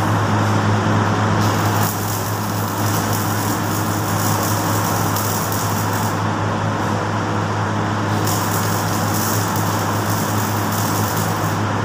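Stick (arc) welding on a steel frame: the arc crackles and sizzles steadily, over a constant low electrical hum.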